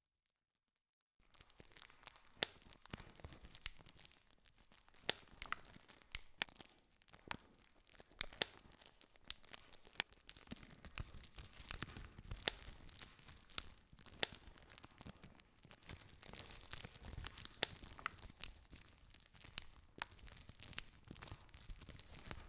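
Campfire crackling: burning wood snapping and popping in quick, irregular sharp cracks over a soft hiss of flame. The crackle starts abruptly about a second in, after a moment of silence.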